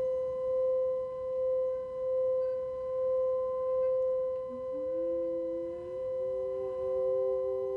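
Tibetan singing bowl ringing with a steady, pure tone that swells and fades in a slow pulse. About halfway through, a second, lower tone comes in, sliding up briefly before it settles and rings along with the first.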